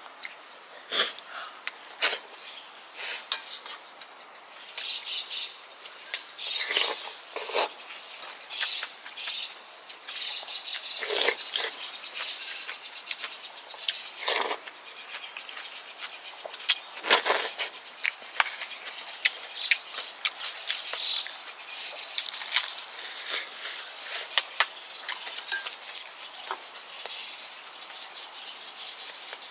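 A person eating kimchi stew and rice: irregular chewing, smacking and slurping, with a spoon and chopsticks clicking against the bowls and pot.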